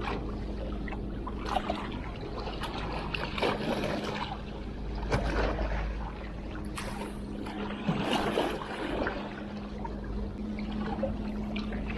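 Sea water washing and lapping, with a swell every second or two, over a steady low hum.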